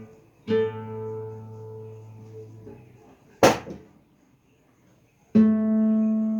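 Acoustic guitar playing slowly. A chord struck about half a second in rings and fades, and a single sharp knock comes near the middle. After a short pause, another chord is struck near the end and left ringing.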